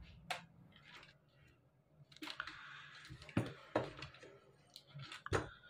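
Faint handling noise from insulated hookup wires being moved about by a gloved hand: a handful of scattered light clicks and a brief rustle.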